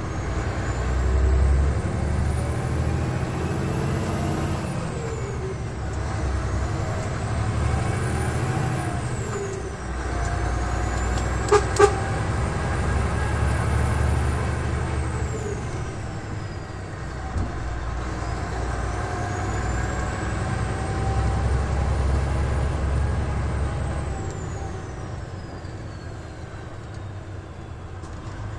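DAF XF 105 truck's PACCAR MX diesel engine pulling, heard from inside the cab, with a high whine that rises and falls with the revs through several gear changes. Two short sharp clicks about twelve seconds in; the engine quietens near the end.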